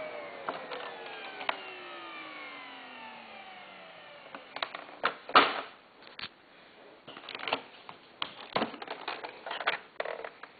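Miele S280i vacuum cleaner's motor winding down after being switched off, its whine falling steadily in pitch and fading over about four seconds. This is followed by a string of sharp clicks and knocks from the machine being handled.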